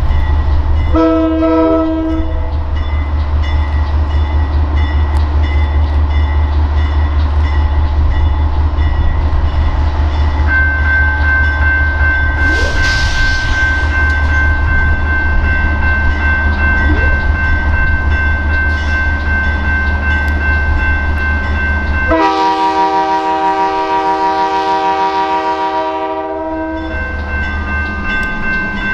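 Diesel locomotive of a slow-moving ballast work train running with a steady low rumble. A short horn note sounds about a second in, and a long multi-note train horn blast of about five seconds comes near the end.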